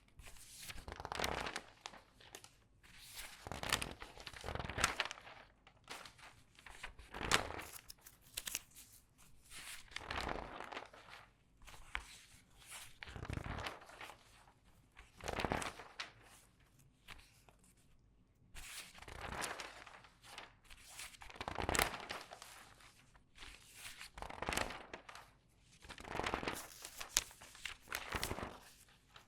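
Newspaper pages turned quickly one after another, each turn a crinkly paper rustle of about a second, about every two seconds, with the newsprint squeezed as it is handled.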